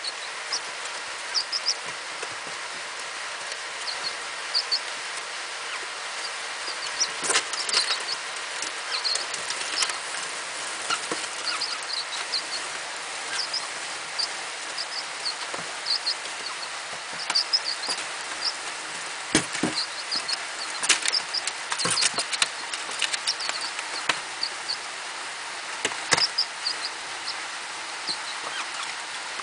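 Two-day-old pheasant chicks peeping, short high cheeps scattered throughout, with sharp taps here and there from the chicks on the newspaper floor, over a steady hiss.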